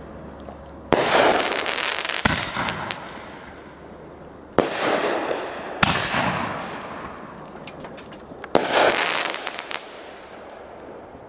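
Fireworks going off: five sharp bangs spread over the stretch, each trailing off slowly, with rapid crackling pops after several of them.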